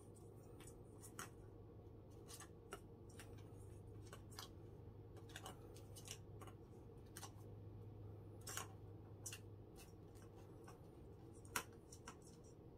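A kitten batting a ball around a plastic circular track toy: faint, irregular clicks and rattles of the ball and plastic, with one sharper click near the end.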